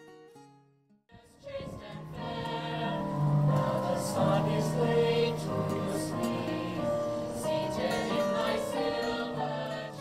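A mixed youth choir of boys and girls singing together in parts, coming in about a second in just after a plucked guitar tune fades out.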